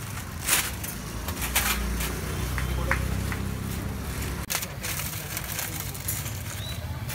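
Busy street food stall ambience: a murmur of voices and road traffic, with a few sharp clatters and knocks.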